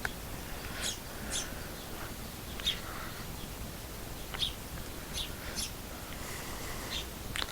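Small songbirds chirping from a bird video played on a television: short, high chirps at irregular intervals over a faint steady hiss.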